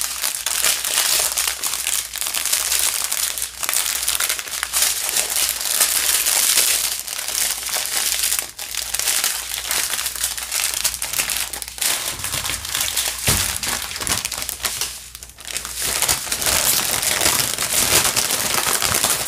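Small plastic bags of diamond painting drills crinkling and rustling as they are handled and stacked, with brief pauses about eight and a half and fifteen seconds in.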